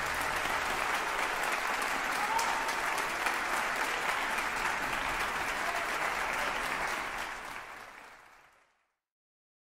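Applause, a steady crackle of many hands clapping, fading out near the end.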